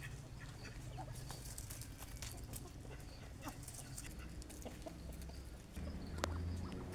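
Chickens clucking, with scattered short calls over a low steady rumble and one sharp sound about six seconds in.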